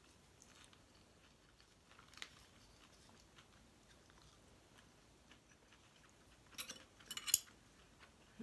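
Quiet close-up chewing of fresh basil leaves, with a few short crackly sounds about six and a half to seven and a half seconds in.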